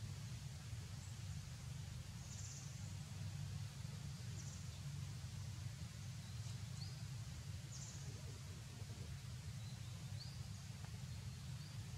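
Outdoor background noise: a steady low rumble with faint, short high chirps scattered every second or two.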